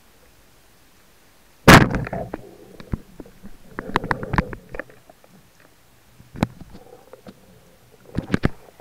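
Speargun firing underwater: one sharp crack with a short ringing tail, heard about two seconds in. Scattered clicks and knocks follow in clusters, the last near the end.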